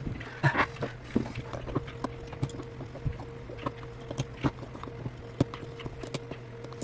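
Small irregular clicks and taps of metal tweezers against the inside of an opened iPhone 8, picking at the battery's adhesive pull tabs, over a steady low electrical hum.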